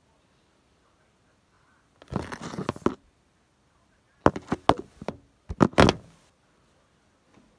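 A rustling scrape about two seconds in, then a run of sharp knocks and thumps in two quick clusters.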